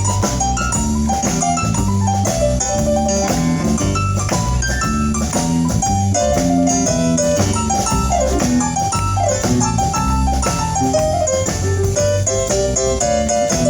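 Instrumental break in a band's song: drum kit and bass under a lead instrument playing a quick stepping melody.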